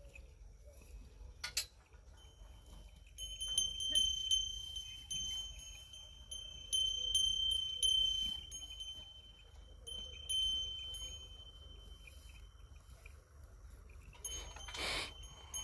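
Metal bells on ploughing bulls ringing on and off as the animals pull, a clear high ring struck again and again. A short loud rush of noise comes about a second before the end.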